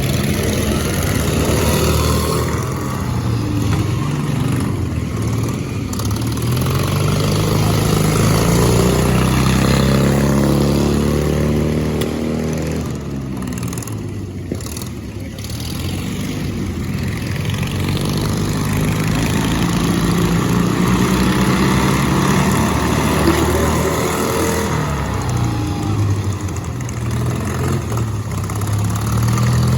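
Racing lawn mower engines running hard, their pitch climbing and falling in long sweeps as they rev up and ease off, twice over.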